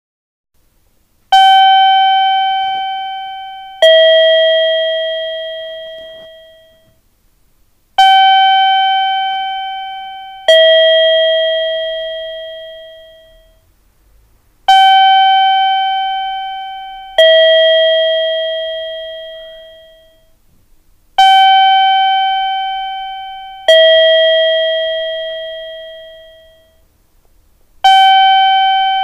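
Japanese railway station guidance chime: an electronic two-note 'ding-dong', a higher note then a lower one, each fading out. The pair repeats about every six and a half seconds, five times. It is the audible locator chime sounded at station ticket gates to guide visually impaired passengers.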